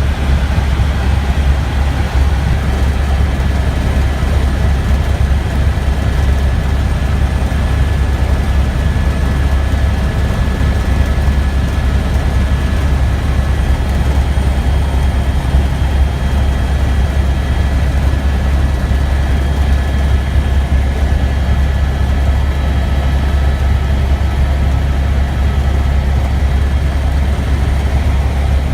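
Helicopter in flight: a loud, steady low drone from the rotor and engine, with a thin, steady whine above it.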